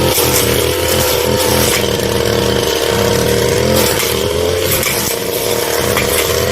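Brush cutter's small petrol engine running steadily at high speed, with a slight wavering in pitch around the middle.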